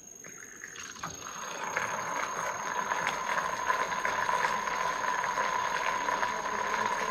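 Tornado Shaker's battery-powered motor spinning its mixing blade, a steady whir with a rattle as it churns BCAA powder into water. It starts about a second in and grows louder over the next second or two.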